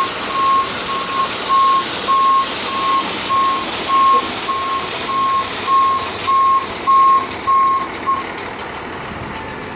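Dump truck's reversing alarm beeping steadily, about two beeps a second, over the truck's running engine; the beeping stops about eight seconds in.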